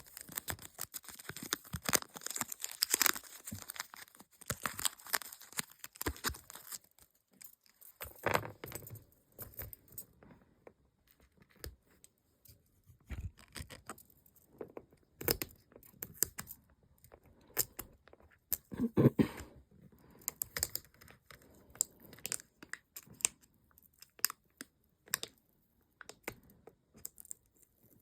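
Sticker sheets being peeled and handled: crinkling and tearing, with many light clicks and taps. Busiest through the first ten seconds, then sparser.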